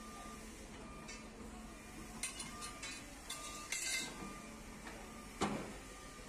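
Tracked hydraulic excavator digging a trench: engine running steadily under clusters of metallic clinks and scrapes, and one sharp knock about five seconds in. A faint short beep repeats about once a second.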